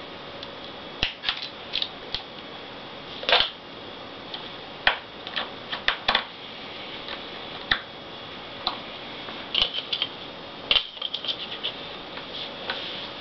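Irregular small clicks, taps and a brief scrape of a screwdriver and the laptop's plastic casing being handled as small screws are put back in, with clusters of quick clicks near the end.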